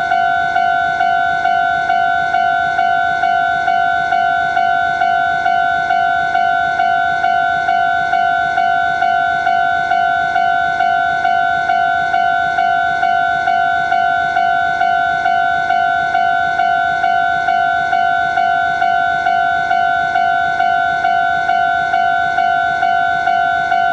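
Japanese railway level-crossing warning bell ringing its 'kan-kan' alarm in an even, unbroken beat of about two strokes a second.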